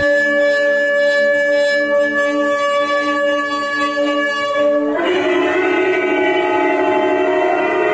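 Shofar (ram's horn) blasts played back through a TV's speakers in a hall. One long steady note holds for about five seconds, then a second, rougher and fuller horn note takes over.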